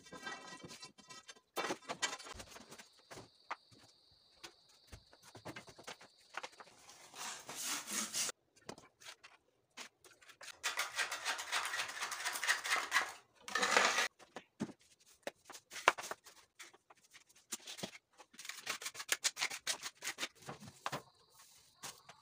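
Brushing and scraping of termite debris on a tiled floor along a wall, in several noisy bursts with scattered clicks and knocks between them. The loudest brushing comes about halfway through. A faint steady high tone sounds for a few seconds near the start.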